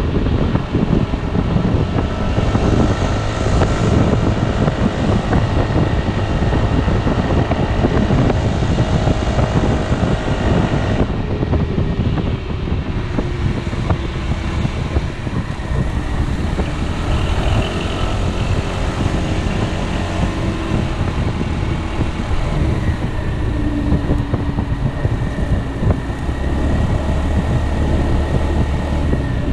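Piaggio Beverly 300 scooter's single-cylinder four-stroke engine running under way, mixed with heavy wind and road noise. About eleven seconds in the wind hiss drops, and after that the engine note rises and falls.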